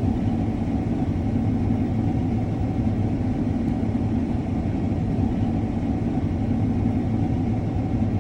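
Combine harvester running steadily, an unbroken engine hum with no change in pitch.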